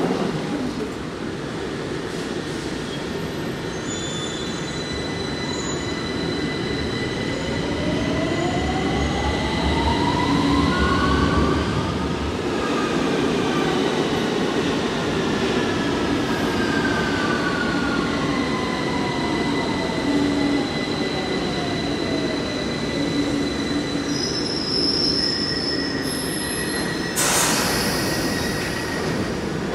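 London Underground 1973 Stock Piccadilly line train moving off: rumbling wheel noise with the traction motors' whine rising in pitch, then falling away, with high squealing tones from the wheels. A brief loud rush of noise comes near the end.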